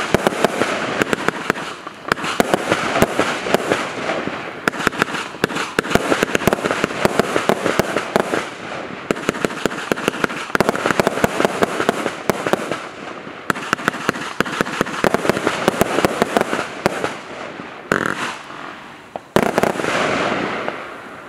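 Baron Burgh 100-shot firework battery firing: a dense, rapid run of shots and aerial bursts. There is one strong bang about two seconds before the end, after which the sound dies away.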